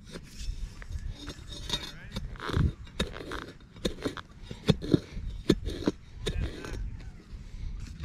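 Digging out a detected target by hand: a series of sharp knocks, clicks and scrapes of a digging tool and scoop in soil, bunched in the middle seconds.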